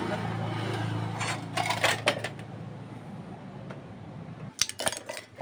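Steel parts clinking and knocking against each other and the steel workbench as they are handled, in a few sharp clinks around the middle and a quick cluster near the end. A steady low hum runs underneath and stops shortly before that final cluster.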